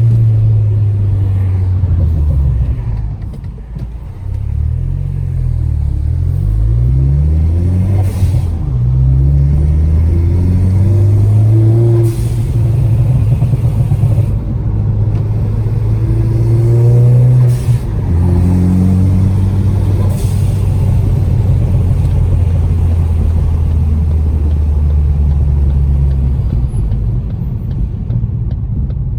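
Ford Focus ST's turbocharged 2.0 EcoBoost four-cylinder through a loud aftermarket cat-back exhaust with a catless downpipe. It revs up through the gears with rising pitch, then runs at a steady drone between shifts. A crackle tune adds a few sharp exhaust cracks.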